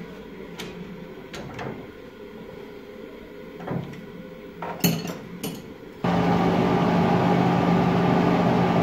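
A few light metallic clicks and knocks, then about six seconds in a metal lathe starts running with a loud, steady mechanical hum that carries on, the part spinning in the chuck while the bore is polished by hand.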